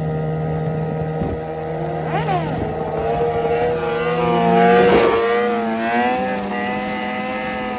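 Suzuki GSX-R750's inline-four engine revving hard while the bike is held up on its back wheel in a wheelie. There is a sweep in revs about two seconds in, then the pitch rises and wavers as the throttle is worked, loudest about halfway through.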